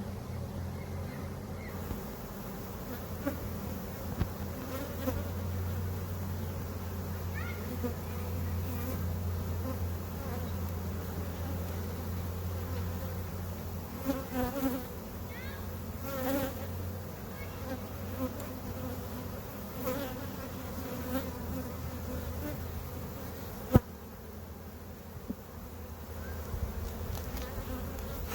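Honey bees buzzing around an opened nuc hive: a steady hum of many bees, with single bees now and then flying close past and bending in pitch. A single sharp knock, the loudest sound, about 24 seconds in.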